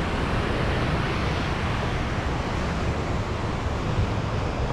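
Wind buffeting the microphone over the steady wash of surf on the beach: an even rushing noise, heaviest in the low end.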